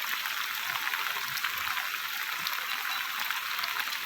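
Heavy rain falling steadily: an even hiss with many small drop hits.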